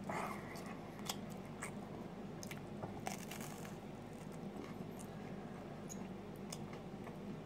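A person biting into a slice of baked frozen pizza and chewing it, with crisp crust crunching and small wet chewing clicks. One bite about three seconds in is louder.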